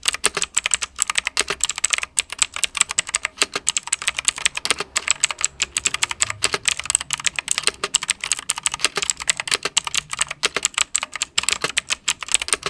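Leaven K620 mechanical keyboard with Bsun switches and stock, unlubricated stabilizers, being typed on quickly and continuously: a dense run of key clicks, several a second, as a sound test of the keyboard.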